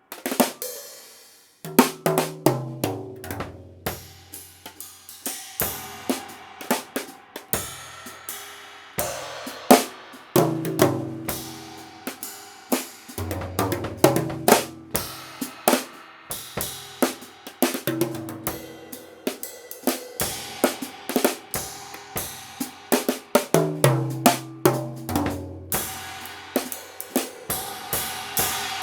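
Drum kit played with thin rods: tom fills stepping down in pitch, mixed with snare, bass drum and cymbal crashes, among them a Byzance China cymbal repaired by cutting out its cracks.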